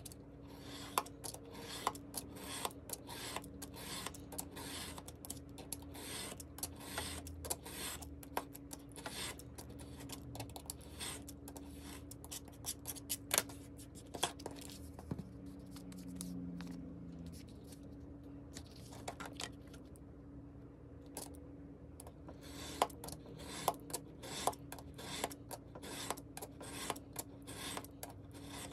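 Craft knife blade drawn along a metal ruler, slicing kraft paper into thin strips on a cutting mat: a quick series of short scraping cuts with small clicks and taps, sped up to double speed.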